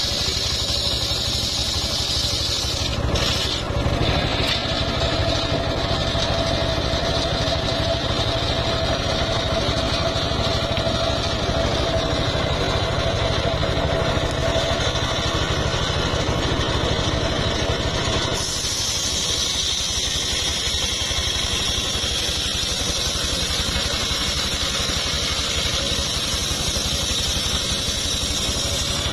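Engine of a homemade circular-saw sawmill running steadily. A steady mid-pitched whine rides on it until about two-thirds of the way through, when the sound changes and the whine drops out.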